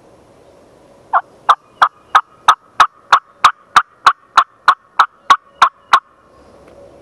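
A long run of turkey yelps: about sixteen loud, evenly spaced notes, roughly three a second, starting about a second in.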